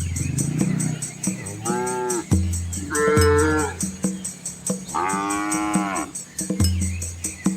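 Cattle mooing, several calls of different lengths, the longest about five seconds in, over background music with a steady shaker-like beat.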